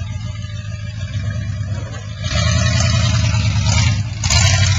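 1980 Ford F-150's 351M V8 engine running as the truck drives past, its sound getting clearly louder about two seconds in as it pulls away, then swelling again briefly near the end.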